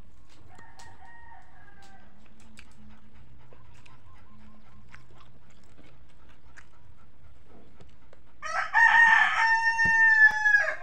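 A rooster crowing once, loudly, about eight seconds in: a rough rising start, then a long held note that falls slightly at the end. A fainter, shorter call comes about half a second in.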